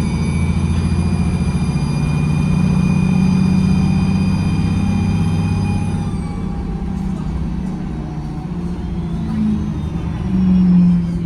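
Bus's diesel engine pulling under load, heard from the back seat, with a high whine over the engine note that falls away about six seconds in as the engine eases off. The engine note picks up again near the end.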